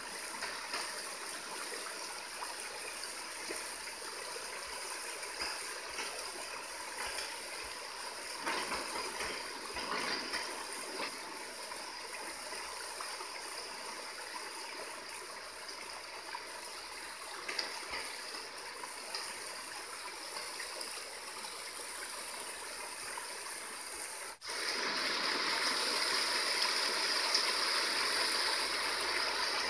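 Steady wash of flowing flood water, a stream-like sound effect played by a flood-simulation app. About 24 seconds in it cuts out for a split second and comes back louder and hissier.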